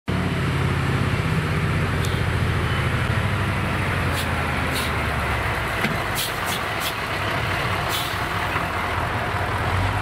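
Diesel engine of a heavy cab-over semi tractor running as it hauls a loaded lowboy trailer past, a low drone that is strongest in the first few seconds and then eases. Several short, sharp noises come between about four and eight seconds in.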